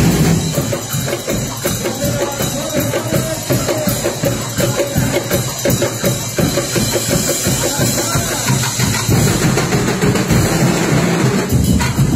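Festival drum-and-percussion ensemble playing a loud, fast, dense drumbeat, with a held note sounding over it for a few seconds in the first half.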